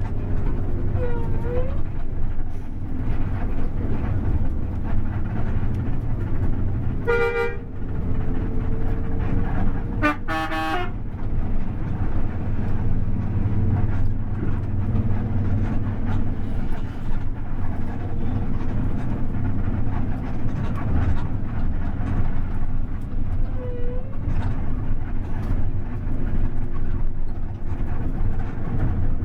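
Steady low rumble of a moving bus's engine and road noise. It is broken by two short horn blasts: one about 7 seconds in, and a longer two-part one about 10 seconds in.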